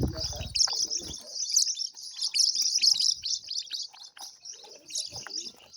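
Many small birds chirping together: a busy chorus of quick, high chirps overlapping continuously, busiest in the middle.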